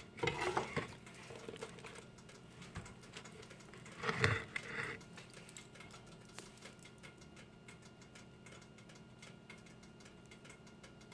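Faint, irregular light clicks and taps of food and utensils being handled on a kitchen counter, with a louder handling sound about four seconds in.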